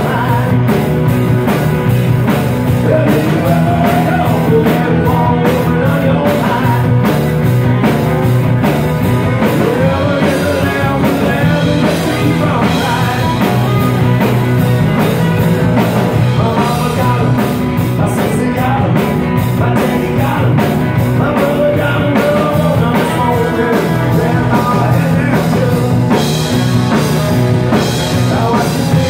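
A live band playing a blues-rock number on acoustic guitar, electric bass guitar, drum kit and saxophone, with a steady beat.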